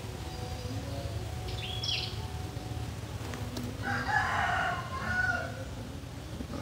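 A rooster crowing about four seconds in, over a steady low hum, with a short high bird chirp about two seconds in.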